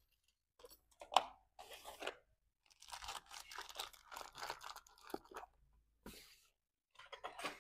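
Faint, irregular crinkling and light clicks of small objects being handled at a desk, with a sharper click about a second in and a longer patch of crinkling from about three to five and a half seconds in.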